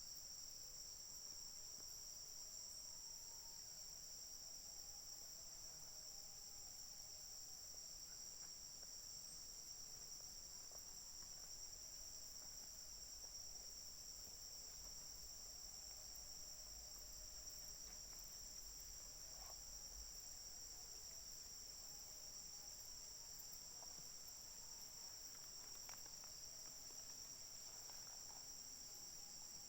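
Steady, unbroken high-pitched chorus of insects trilling, with faint scattered short calls beneath it.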